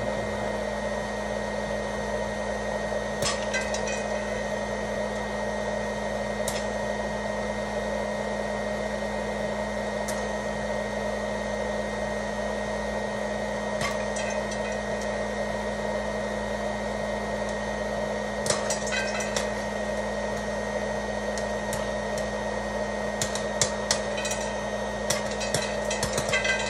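DASH Turbo POP hot-air popcorn maker running with a steady fan-and-heater hum. Scattered sharp clicks come from the kernels heating in the chamber, few at first and more frequent near the end as the first kernels begin to pop.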